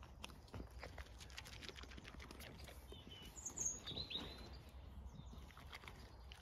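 Faint crunching and clicking of a Zwartbles ewe chewing sheep feed taken from a hand. A few short bird chirps come in around the middle.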